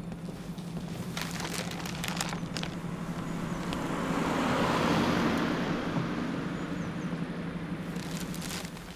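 A rushing noise that swells to its loudest about halfway through and then fades away near the end, over a steady low hum, with a few faint clicks a second or two in and again just before it dies away.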